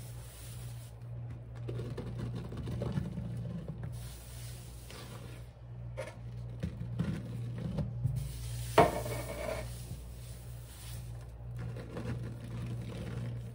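Cleaning powder being rubbed and worked into a sponge: irregular scrubbing and rasping over a steady low hum, with one sharp knock about nine seconds in, the loudest sound.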